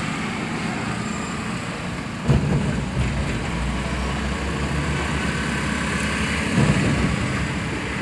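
Engine and road noise heard inside the cabin of a moving vehicle, steady, with two brief knocks, about two seconds in and again later.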